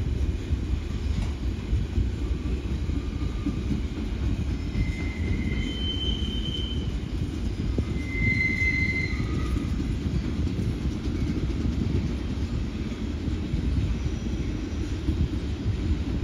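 Freight train of car-carrier wagons rolling past with a steady low rumble of wheels on track, and a few short high-pitched wheel squeals about five and eight seconds in.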